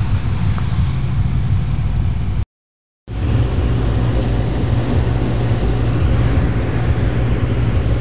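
A steady low rumble and hiss, heavy in the bass, that drops out to silence for about half a second some two and a half seconds in, then carries on unchanged.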